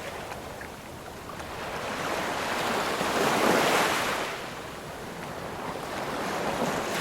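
Ocean waves breaking on a shore: one wave swells to a peak a little past halfway and washes back, and the next is starting to build near the end.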